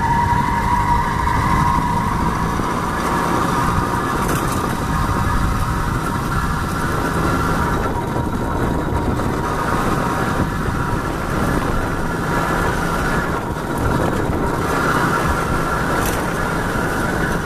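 Freshly rebuilt D8 50 cc two-stroke single-cylinder moped engine running steadily under load while riding, pulling well.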